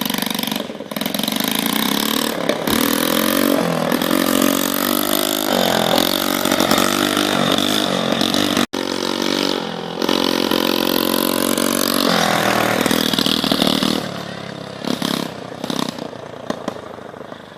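Small mini-bike engine on a homemade motorized bicycle running under load as it is ridden, its pitch rising and falling repeatedly with the throttle. The sound breaks off for an instant a little before halfway, then fades over the last few seconds.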